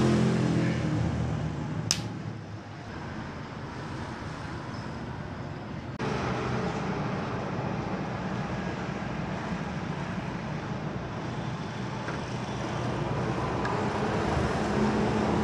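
Steady background traffic noise with a low engine hum, louder at first and fading over the first couple of seconds, and one sharp click about two seconds in.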